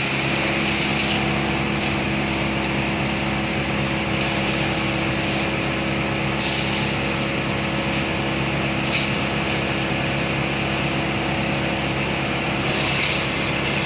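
An engine running steadily at a constant speed, with a hiss over it.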